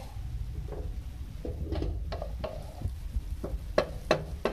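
Wooden spatula stirring ground spices into fried onions in an aluminium frying pan, scraping and tapping against the pan, with a couple of sharp knocks near the end.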